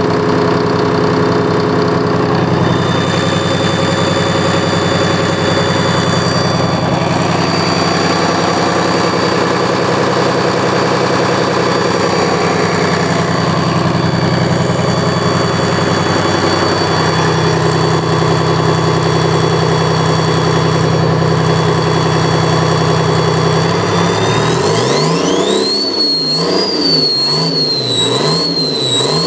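Detroit Diesel 6V53T, a turbocharged two-stroke V6 diesel, idling steadily. About 25 s in it is revved up, and its speed then rises and falls several times, with a high whine rising and falling with it.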